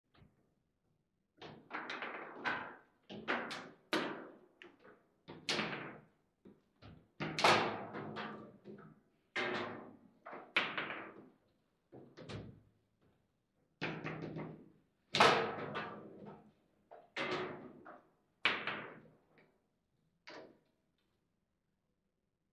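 Table football in play: the hard ball clacking off the plastic figures and the table's walls and the rods knocking, in irregular runs of sharp knocks and slams that die away near the end.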